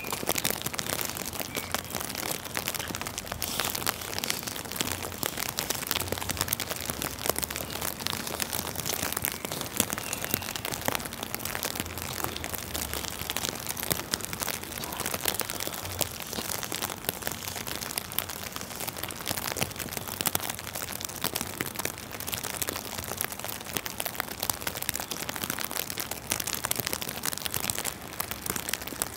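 Rain mixed with wet snow falling, a steady dense crackle of many small drops.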